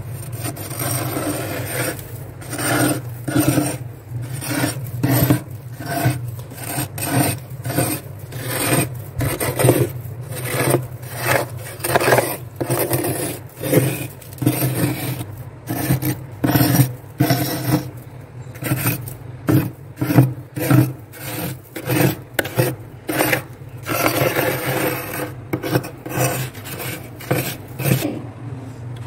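Steel spoon scraping and chipping thick freezer frost in repeated rough strokes, about one or two a second, over a steady low hum.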